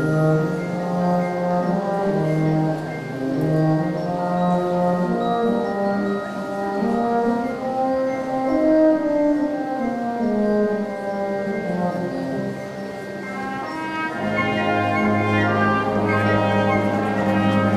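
High school wind band playing a melody over held low notes; near the end the brass fills out and a low bass line comes in, making it fuller and louder.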